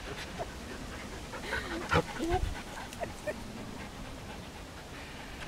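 A dog panting, with a sharp knock about two seconds in and a few short whine-like sounds.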